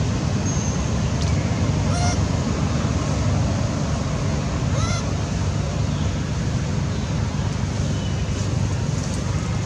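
A steady low rumble, with a few brief squeaky calls from monkeys rising over it about two seconds and about five seconds in.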